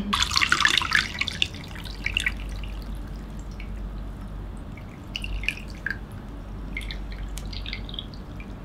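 Liquid dripping and trickling: a crackly trickle in the first second and a half, then scattered small drips and light clicks.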